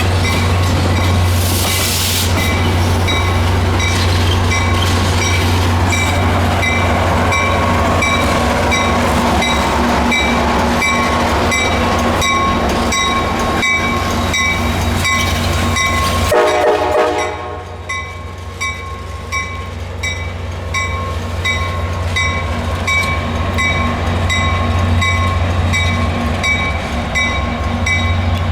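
Metra MP36PH-3S diesel locomotive backing a train, its engine giving a steady low drone under a regularly repeating ringing tone. About seventeen seconds in, a short horn blast sounds, and the train is a little quieter after it.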